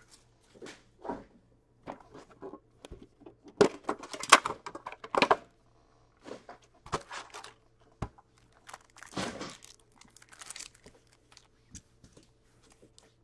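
Plastic wrapping and foil card packs crinkling and rustling as a sealed hockey card box is unwrapped and opened, in irregular bursts with a few sharp clicks. The loudest rustling comes about four to five seconds in.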